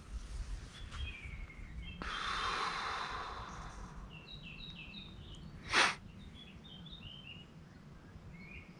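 A small songbird chirping in short high notes, with a long breath out close to the microphone about two seconds in and one sharp short noise near six seconds.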